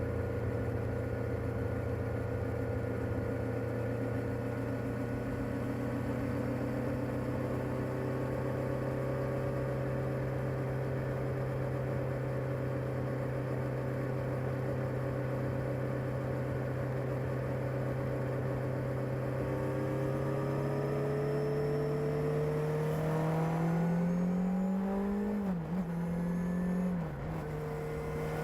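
Kawasaki ZR-7S air-cooled inline-four running on its stock exhaust, holding a steady mid-range engine speed for most of the stretch. Near the end the revs climb, then drop sharply twice in quick succession, like gear changes or throttle blips.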